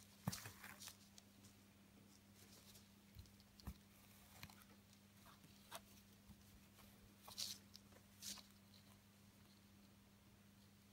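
Near silence with a few faint, short scratches and rustles of a needle and ribbon being worked through coarse burlap in a plastic embroidery hoop, over a low steady hum.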